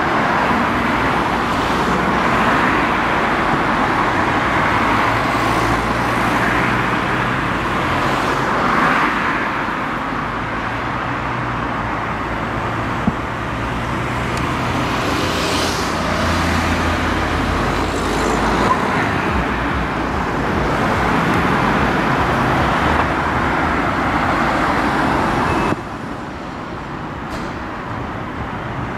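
Road traffic: cars passing by, a steady rush of tyre and engine noise with a few swells as cars go past. The noise drops off suddenly near the end.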